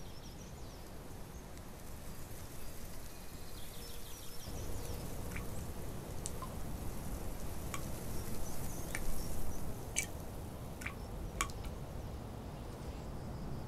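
Outdoor woodland ambience: a steady rush of breeze, fuller from about four seconds in, with small birds twittering faintly and giving several short, sharp chirps.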